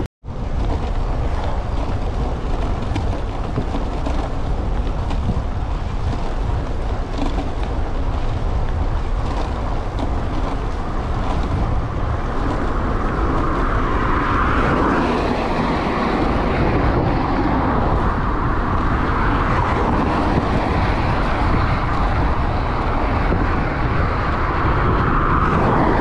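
Steady wind rush and tyre noise from a road bike being ridden along a roadside path and onto the road, with a deep low rumble of wind on the microphone. A rushing sound grows stronger about halfway through, as road traffic noise joins it.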